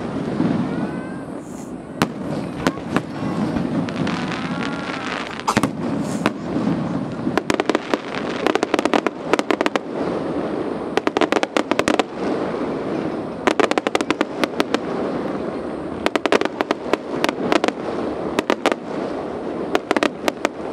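Fireworks display: sharp bangs and crackles come in rapid clusters, densest through the second half.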